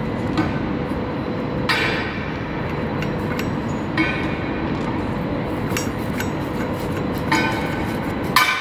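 Steel bolts and a wrench knocking against the steel flanges of a pipe joint during assembly: about four sharp, ringing metallic clanks over a steady background noise.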